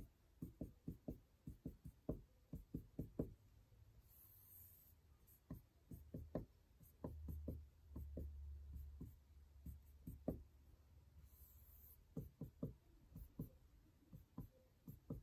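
Marker pen drawing on the board: faint, quick taps of the felt tip in clusters as small crosses are marked, with a few brief scratches where circles are drawn and pauses between.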